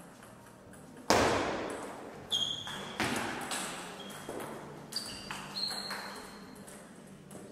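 Table tennis rally: the ball is struck by bats and bounces on the table in a string of sharp clicks about every half second, the loudest about a second in, each echoing in the hall. A few short high squeaks of shoes on the floor come between the hits.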